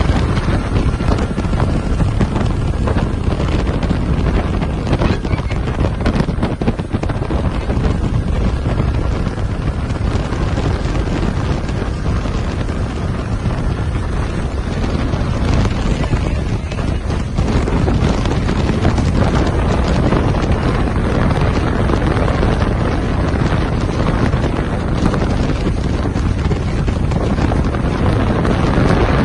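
Wind buffeting the microphone on a moving motorboat, over the steady rush of the boat's motor and the hull on the water. It is a loud, unbroken roar that grows a little louder about two-thirds of the way through.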